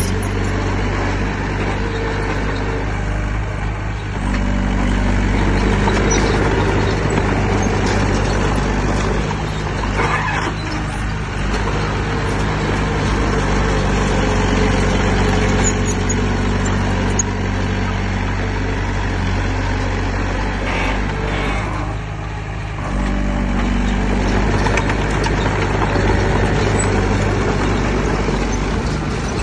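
Heavy earthmoving machine's diesel engine running loudly and steadily, its note dropping and picking up again a few times as the load changes.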